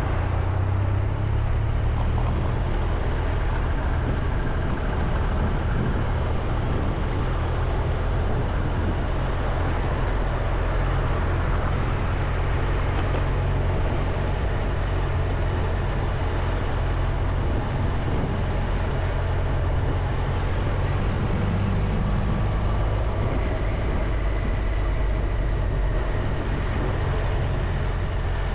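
Triumph Tiger 1200 motorcycle engine running steadily while riding through town, mixed with a steady rush of wind and road noise.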